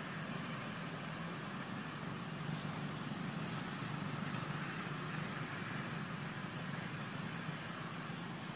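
Steady low outdoor background rumble, with one short high-pitched whistle about a second in.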